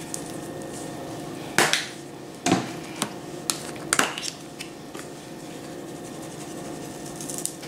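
Seasoning shaker bottles being handled: a handful of sharp clicks and knocks, roughly one every half second, between about one and a half and four seconds in, over a steady faint hum.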